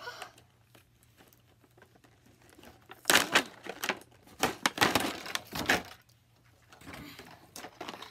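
Packaging crinkling and rustling as a box is opened by hand: a few light clicks at first, then a run of loud rustles about three seconds in, fading to fainter handling near the end.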